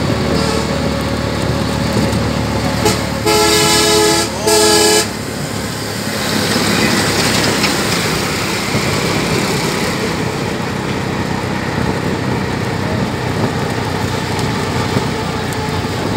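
A vehicle horn sounds twice a few seconds in: two steady blasts, about a second and half a second long. A bus then passes close by, its engine and tyre noise swelling and fading.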